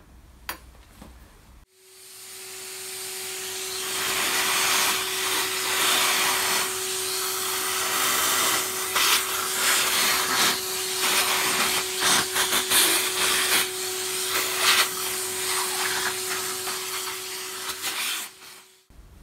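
Vacuum cleaner sucking metal drilling chips out of a cast-iron table casting. The motor starts about two seconds in and builds to full speed, then runs with a steady hum and scattered clicks and rattles. It switches off near the end.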